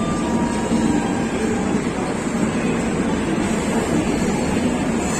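Steady rumble and hum of the Bhrigu Superfast Express's red LHB passenger coaches alongside the platform.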